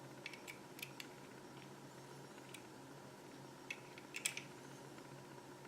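Faint, scattered small clicks and taps of 3D-printed plastic transmission parts and a small tool being handled, in a few brief clusters about a second in and again around four seconds in.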